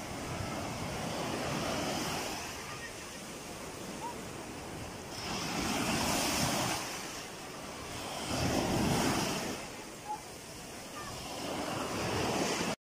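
Small sea waves breaking and washing in over shallow sandy water, the surf noise swelling and fading every three seconds or so. It cuts off suddenly just before the end.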